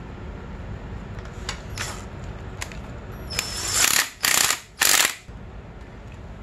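Cordless drill/driver with a 5 mm hex bit driving a fork-guard bolt in three short bursts near the middle, after a few light clicks as the bit is set on the bolt.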